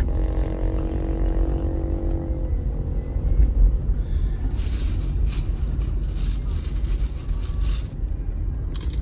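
Inside a moving car: steady low engine and road rumble while driving up a winding mountain road. A droning pitched hum runs under it and cuts off about two and a half seconds in. A faint hissing crackle comes in for a few seconds from about halfway.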